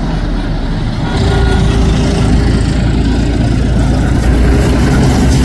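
Heavy diesel engine running steadily, getting a little louder about a second in.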